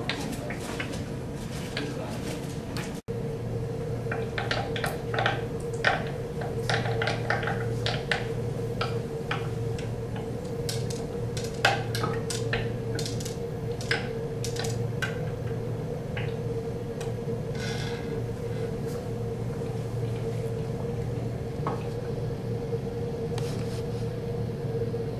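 Irregular sharp pops and crackles of chlorine gas reacting with acetylene bubbles underwater in a glass cylinder, thickest in the first half, over a steady low hum.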